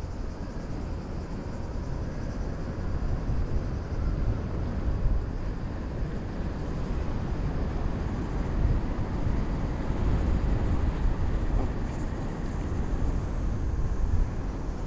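Airflow buffeting the microphone on a tandem paraglider in flight: deep, steady wind noise.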